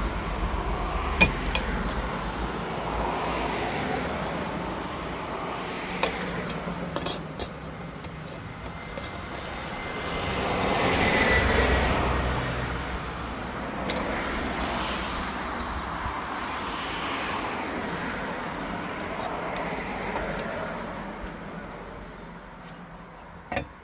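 Road traffic noise, swelling as a vehicle passes, loudest about halfway through and fading toward the end, with a few sharp clicks.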